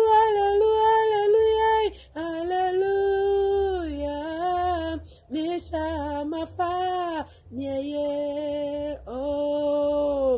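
A woman singing a Twi worship song unaccompanied, in about five long held phrases with short breaths between them, the notes bending down at the end of each phrase.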